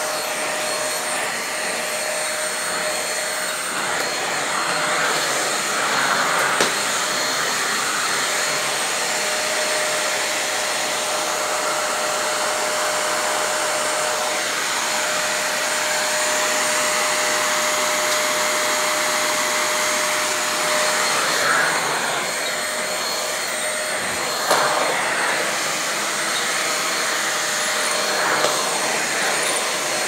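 Corded stick vacuum cleaner running steadily, its motor whine holding one pitch, with a few brief knocks along the way.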